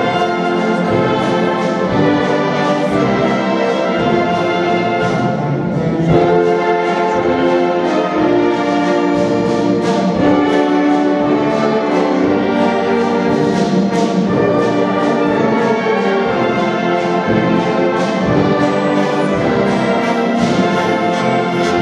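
A wind band of saxophones, trumpets, trombones and tuba playing a song together in a church, over a steady beat.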